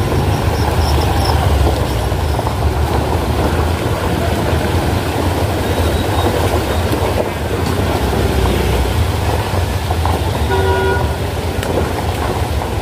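Road traffic with a steady low rumble, and a vehicle horn honking briefly about ten and a half seconds in.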